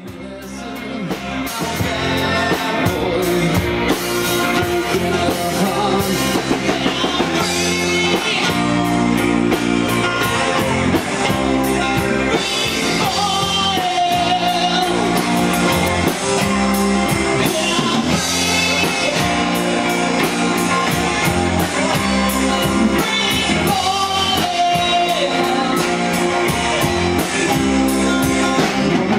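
Rock band playing a song, with a singing voice over electric guitars and drum kit. The music fades in over the first couple of seconds.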